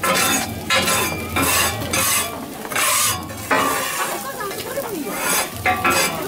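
Metal spatulas scraping across a hot teppan griddle in quick repeated strokes while okonomiyaki sizzle.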